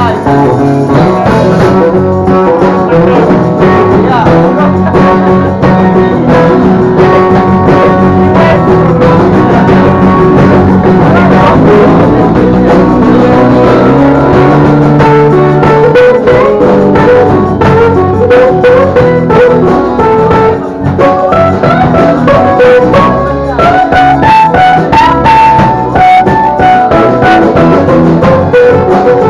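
Live blues band playing: strummed acoustic guitars and electric bass over a drum kit, with a harmonica playing a wavering lead line.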